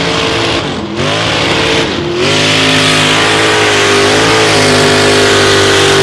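Mud-bogging truck's engine revving hard as it ploughs through a mud pit. The revs dip briefly about one and two seconds in, then hold high and steady.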